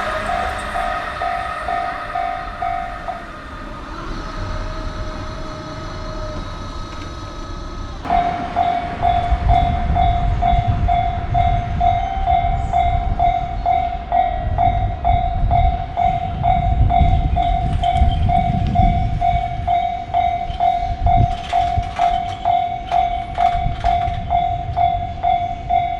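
Japanese level-crossing warning bells ringing in a fast, regular beat while trains rumble along the rails. One crossing's bell stops about three seconds in. About eight seconds in, a louder bell at another crossing starts and keeps ringing over the passing train's rumble and rail clicks.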